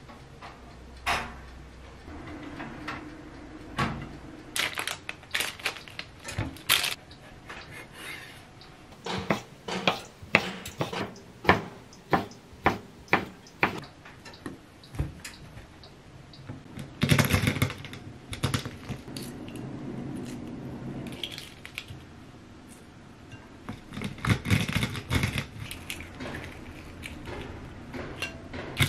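Kitchen knife chopping ham on a wooden cutting board, a run of sharp strikes about two a second. Later, hard-boiled eggs are cracked and their shells peeled off over a bowl of water, with clusters of crackling clicks.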